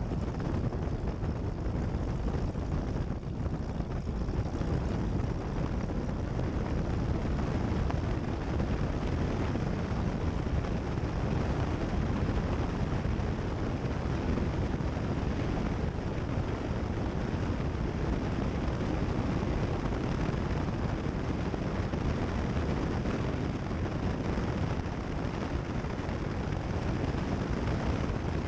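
Cessna 172 Skyhawk's piston engine and propeller running steadily, heard as cockpit noise through the headset audio feed.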